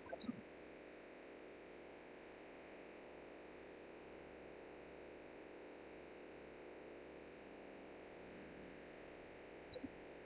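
Near silence: faint steady microphone hiss and hum, with a few small clicks right at the start and one short click just before the end.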